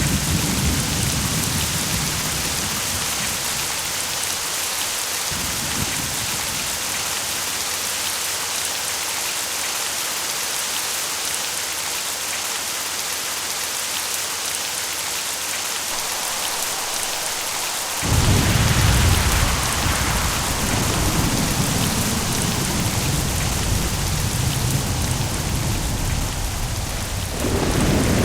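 Steady heavy rain hissing, with thunder. A low rumble dies away over the first few seconds. About two-thirds of the way through, a sudden loud clap of thunder breaks into a long rolling rumble, and the rumble swells again near the end.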